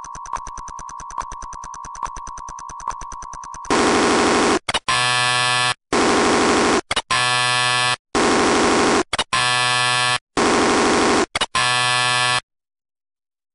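Experimental electronic music: a steady high test-like tone over fast ticking pulses, then about four seconds in loud, dense, many-pitched electronic blocks that switch abruptly on and off several times before cutting to dead silence about twelve seconds in.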